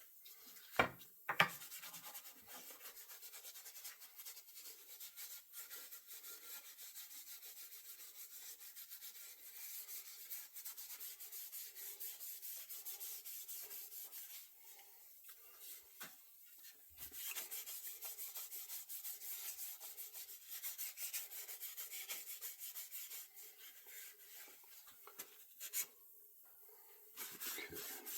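Rag rubbing a finish into a wooden axe handle in quick back-and-forth hissing strokes, pausing briefly twice, after a couple of sharp knocks about a second in.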